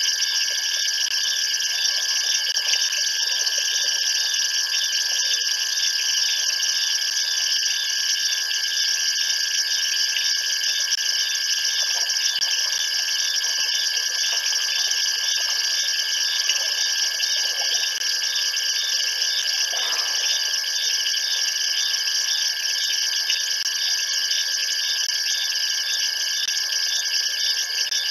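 Dense night chorus of insects: several unbroken high-pitched trills layered together, one of them pulsing rapidly.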